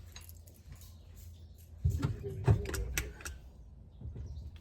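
Hand tools being handled, metal clinking and knocking in short clicks, with a quick run of clicks and dull thumps about two seconds in.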